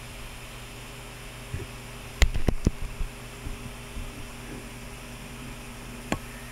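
Steady electrical hum and fan-like hiss, broken by three sharp knocks in quick succession a little over two seconds in and one more click near the end: handling noise.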